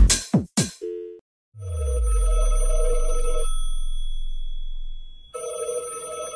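Telephone ringtone ringing twice, each ring about two seconds long with a pause between, over a deep bass swell, in a break of an electronic dance track whose beat stops under a second in.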